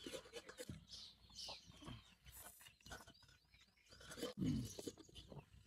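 Hen clucking and chicks peeping, with scattered light clicks and taps; a louder low call comes about four and a half seconds in.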